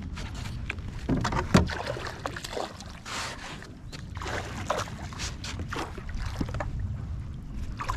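Water splashing and sloshing at the boat's side as a hooked bass thrashes at the surface and is brought to the landing net. The splashes are irregular, the loudest about a second and a half in.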